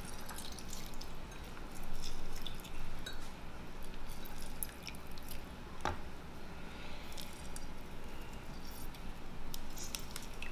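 Lime halves squeezed by hand over a glass measuring cup, the juice dripping into the dressing, with scattered small ticks and one sharper tap about six seconds in.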